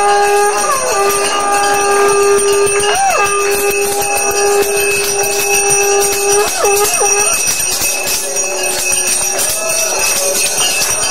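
Ritual devotional music: small bells jingling rapidly and continuously over a long held note that dips in pitch and starts again about three seconds in and again about six and a half seconds in.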